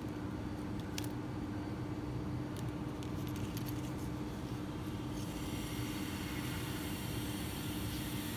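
Steady low background rumble with a constant hum, like distant traffic, and a few faint small clicks about a second in and around three seconds in as the fishing hook and line are handled.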